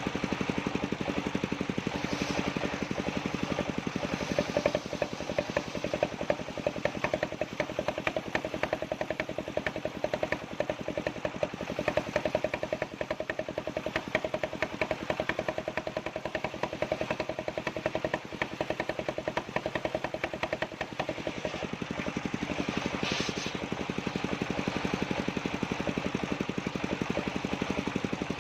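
Engine-driven circular sawmill running steadily, the engine firing with a fast, even beat.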